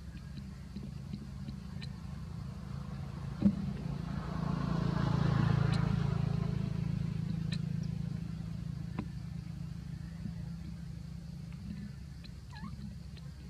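A motor vehicle passing: its sound swells about four seconds in and fades away over the next few seconds, over a steady low hum, with a few sharp clicks.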